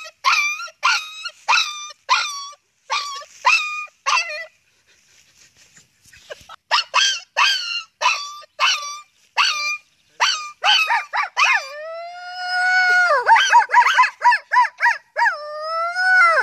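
A man imitating a dog with his voice: short yelping barks about two a second, a pause of about two seconds, then more yelps, a long held howl, a fast run of yips at about four a second, and a second, rising howl near the end.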